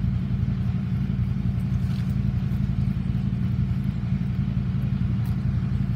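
Northern Class 333 electric multiple unit standing at the platform, giving a steady low hum.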